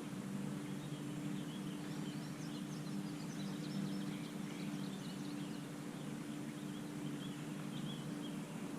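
Small birds chirping and twittering in quick, scattered notes over a steady low hum.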